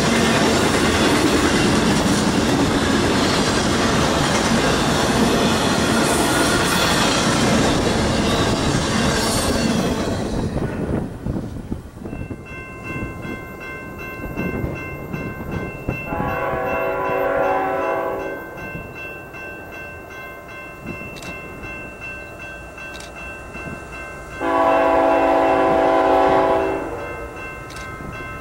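Intermodal freight train of trailers on flatcars passing close by for about ten seconds. Then a BNSF freight locomotive's horn, approaching, sounds two long blasts, the second louder.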